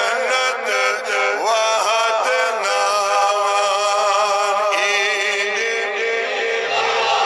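Man singing a Kashmiri naat, an Islamic devotional hymn, into a microphone in gliding melodic phrases, with a long wavering held note midway through.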